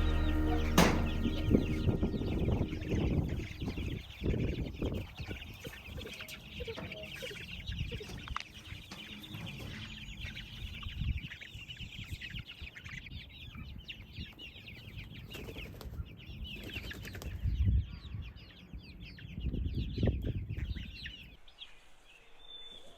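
A flock of young chickens in a coop cheeping and clucking over one another, with wings flapping and low thumps and rumble underneath, loudest about 17 and 20 seconds in. It dies down near the end.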